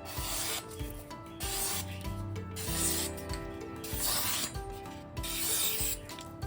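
Gyuto chef's knife blade being stroked across a wet whetstone, five even gritty sharpening strokes about a second and a quarter apart.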